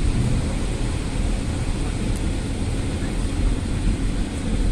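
Steady low rumble of a moving vehicle, with no distinct knocks or changes.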